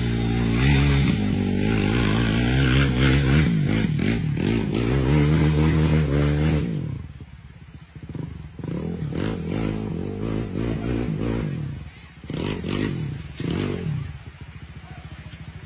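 Quad (ATV) engine revving hard and rising and falling in pitch as it churns through mud. After a sudden cut, a sport quad stuck in deep mud is revved in short repeated bursts while its wheels spin and men push it.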